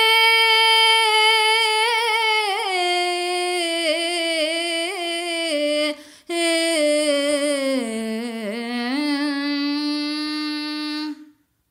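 A solo high voice singing long, held notes of a devotional melody with no clear words, the pitch turning and wavering through each note. It breaks off briefly about six seconds in, sinks lower for a moment around eight seconds, then stops shortly before the end.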